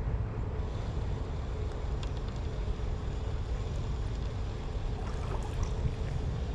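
Steady low wind rumble on the microphone over the wash of flowing river water, with a few faint clicks.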